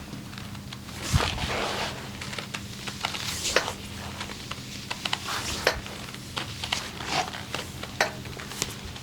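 Hands working on skin during a massage: rubbing and rustling, with about ten sharp slaps or pops at irregular intervals, over a steady low hum.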